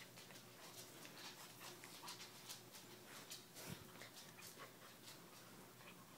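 Faint scuffling and rustling of a puppy tugging on a rope toy, with scattered soft clicks.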